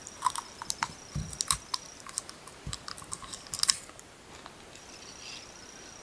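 Sharp, irregular clicks and crackles over about four seconds from a wrapped caramel being unwrapped and eaten, a few with a soft low thump. A faint steady high cricket trill comes in near the end.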